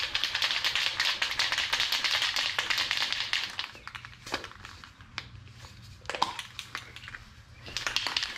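Aerosol can of Rust-Oleum automotive primer spraying: one long hiss of about three and a half seconds, then a few light clicks, then a second short spray near the end.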